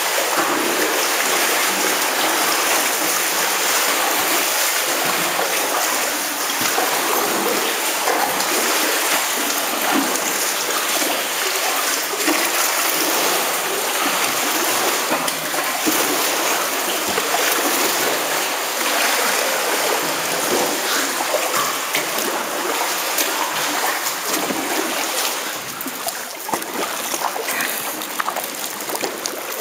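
Lake water lapping and splashing against rock inside a low, cramped sea cave, a dense wash of many small splashes and drips. It gets quieter near the end as the kayak comes out of the cave into open water.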